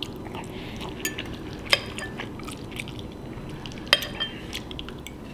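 Metal utensil stirring and scooping macaroni and cheese in a bowl, clinking against the bowl, with two sharp clinks about two and four seconds in.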